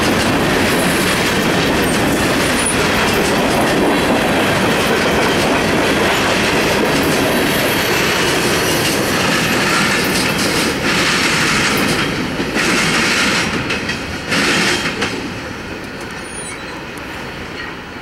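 Covered hopper cars of a CSX freight train rolling past close by, a steady rumble of wheels on rail with clickety-clack over the joints. In the second half there are three short bursts of wheel screech. After that the noise falls away as the end of the train moves off.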